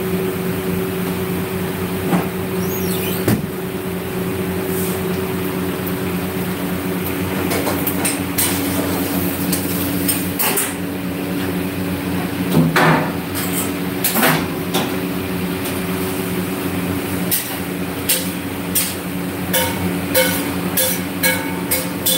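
Steady machine hum of kitchen equipment, with scattered knocks and clicks on top that come thick and fast in the last few seconds.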